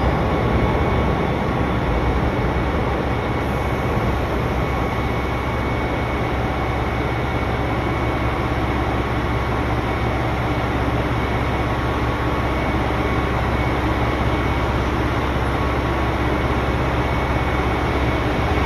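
JR Hokkaido 721 series electric train running: a steady rumble with a faint steady whine over it.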